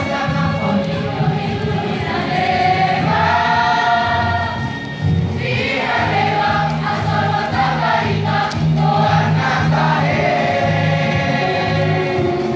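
Mixed school choir of boys and girls singing a song in harmony, clapping along.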